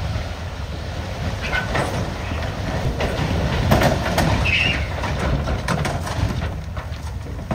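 Heavy dump truck's diesel engine running while its raised bed tips a load of rock, with loose rocks clattering as they slide off the back.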